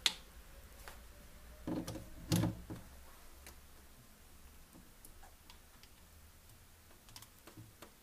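Handling noises as a power cable is fitted to a plastic aroma diffuser: a sharp click at the start, two dull knocks about two seconds in, then a few faint ticks.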